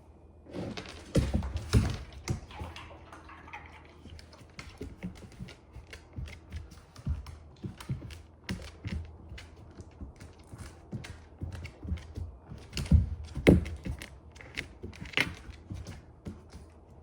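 A chocolate Labrador's footsteps on a hard floor: claws clicking and paws tapping in an irregular run of a few steps a second, with a few heavier thumps about a second in and again around 13 seconds.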